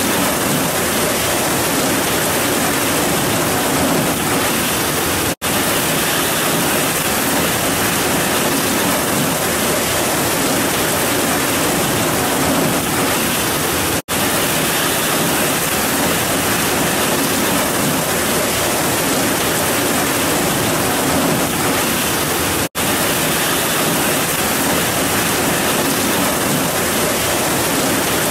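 Heavy rain pouring down in a steady, dense hiss with no thunder, cutting out for an instant three times.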